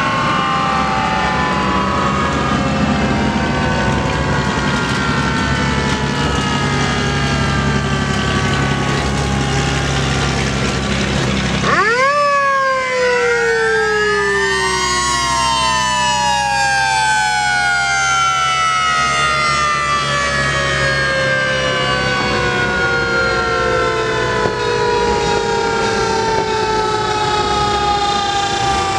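Several fire truck sirens sounding at once, their pitches sliding slowly down. About twelve seconds in, one siren winds up sharply and then coasts down, over the steady running of truck engines.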